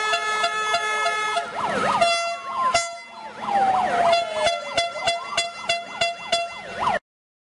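Protest noisemakers: sirens wailing, with quick up-and-down yelps and slow falling sweeps, over long steady horn blasts. All of it cuts off suddenly near the end.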